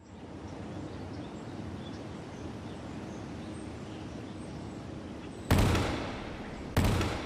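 Steady background noise, then two sudden loud bangs about a second and a quarter apart near the end, each dying away over about a second.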